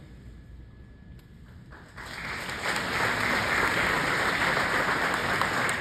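Audience applauding: a crowd's clapping breaks out about two seconds in and holds steady.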